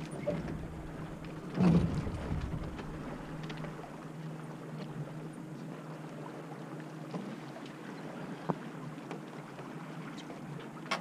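Water rushing and splashing against the hulls of a small sailing catamaran under way, with a heavier splash about two seconds in and scattered small slaps. A faint steady low hum runs underneath.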